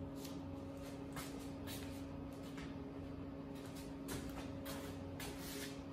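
A steady low hum in the room, with faint scattered taps and rustles as a polish bottle and a cordless drill with a foam buffing pad are handled. The drill is not running.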